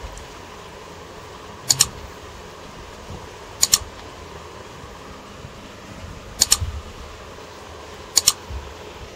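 Metal serving spoon clinking against metal cookware while biryani is dished out: four sharp double clinks, about two seconds apart.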